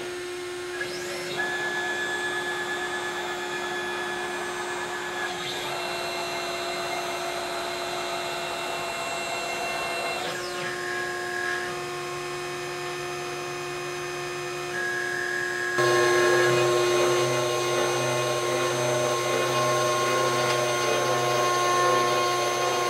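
CNC router with a water-cooled spindle running steadily while its stepper motors whine at pitches that change every few seconds as the gantry traverses to its zero position and across the table. About 16 seconds in the sound turns louder and rougher as the 3 mm ball-nose bit starts cutting the wood on the finishing pass.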